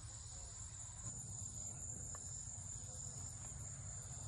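Steady high-pitched chorus of field insects, with a low rumble underneath.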